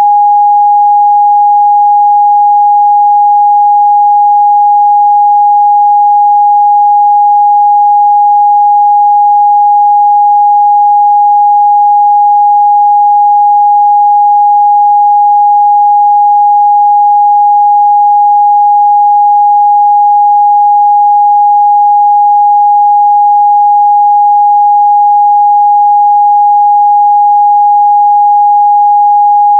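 Steady 824 Hz pure sine-wave test tone, one unchanging pitch held at constant loud level.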